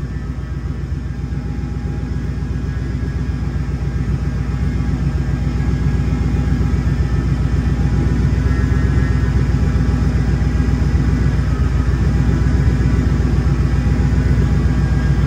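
Supercharged 5.4-litre V8 from a Ford Lightning idling steadily at about 900 rpm, freshly started on new Holley Terminator X fuel injection. The deep, steady rumble grows slightly louder over the stretch.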